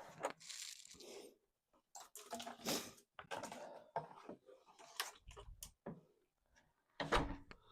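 Faint scattered clicks and short rustling, scraping noises from handling a storm door's metal screen insert and its plastic retaining pieces.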